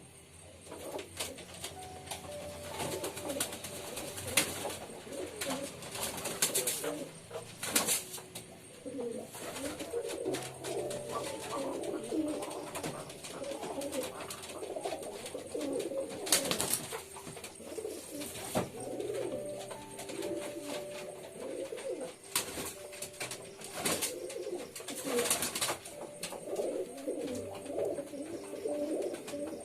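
Domestic pigeons cooing, with several birds' calls overlapping almost without pause, and a few brief sharp noises scattered among them.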